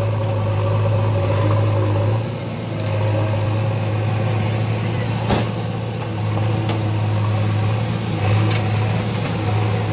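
JCB 3DX backhoe loader's diesel engine running steadily as the machine moves and lifts its front loader bucket, easing off briefly about two seconds in. A single sharp click about five seconds in.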